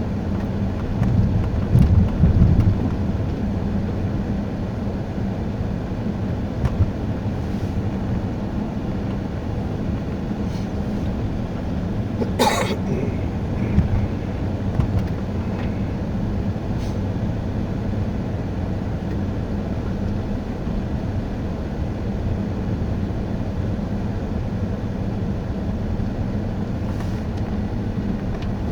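Steady engine and tyre drone of a car driving on a snowy, slushy road, heard from inside the cabin. A single brief sharp noise cuts through about halfway.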